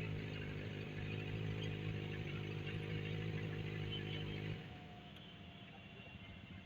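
Benelli 600i's inline-four engine idling steadily through its aftermarket exhaust, dropping quieter about four and a half seconds in.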